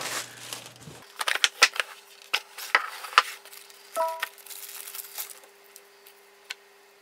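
Dash cam box and its packaging being opened and handled: a run of crinkles, clicks and rustles, with a brief squeak about four seconds in, thinning out toward the end.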